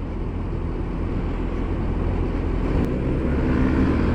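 Wind rush and motorcycle engine and road rumble, picked up by a small wireless mic inside a riding helmet while on the move. The rush slowly grows louder, and a faint steady engine hum comes through partway in.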